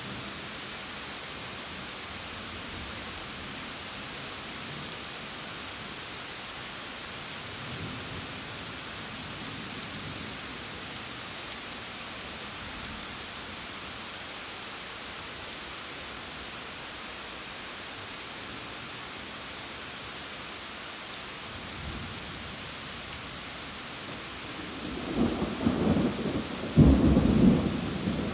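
Steady rain falling, with faint low rumbles of distant thunder. Near the end, a much louder peal of thunder rolls in, rumbling in several surges.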